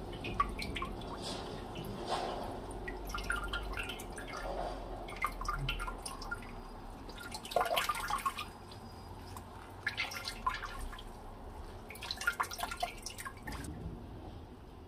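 Water dripping and trickling into a stainless steel bowl in about five bursts as hands squeeze the water out of a bunch of dureup (angelica tree) shoots.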